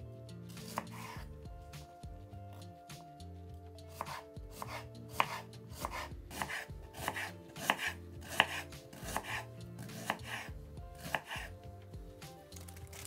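Chef's knife slicing an onion on a bamboo cutting board: irregular crisp chops of the blade through the onion into the wood, sparse at first, coming thick and fast in the middle and stopping near the end.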